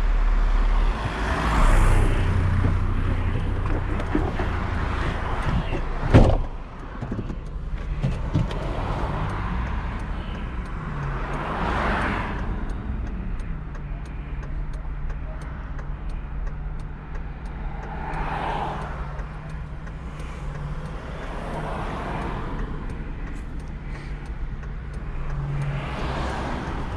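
Pickup truck engine running as the truck pulls ahead, a steady low hum with slow swells, and a single sharp bang about six seconds in.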